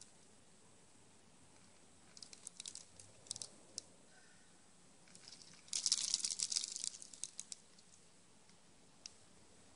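Eastern gray squirrel foraging in a pile of bird seed, with loose seeds and shells clicking and crackling. A short scattered spell comes about two seconds in, and a denser, louder one around six seconds.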